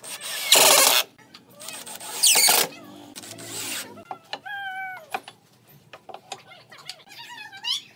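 Cordless drill driving screws into a pine frame in short bursts: about half a second in, again near two seconds, and more weakly around three and a half seconds. Around four and a half seconds a short pitched call, falling slightly, is heard.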